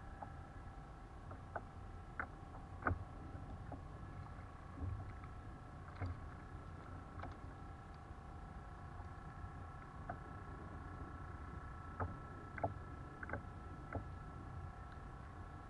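Light, irregular clicks and knocks of rod, reel and hull being handled on a fishing kayak while a small fish is reeled in and swung aboard, over a faint steady high-pitched hum.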